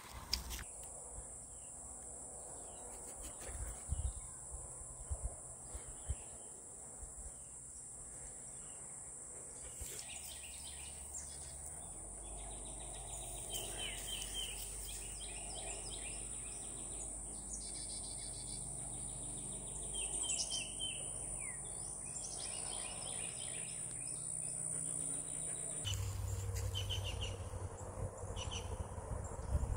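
Woodland ambience: a steady high-pitched insect drone with songbirds chirping and calling, the bird calls busiest through the middle and later part.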